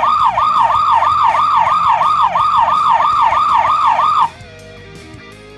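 Electronic siren from the Bandai DX Fire Dragon toy's built-in sound speaker: a fast, repeating rising-and-falling yelp, about three cycles a second, that cuts off suddenly about four seconds in. Faint background music follows.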